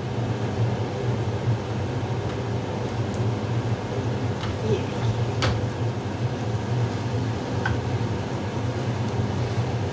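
Vegetable cutlet bites shallow-frying in a little oil in a nonstick pan, a faint sizzle over a steady low hum. There are a few light taps as another piece is set in and a spatula touches the pan.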